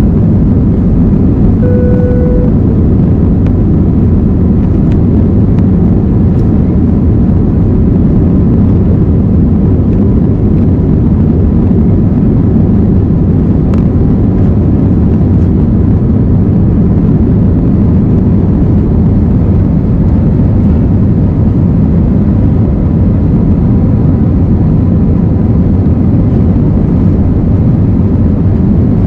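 Jet airliner engines at takeoff power, heard from inside the cabin as a loud, steady, low rumble.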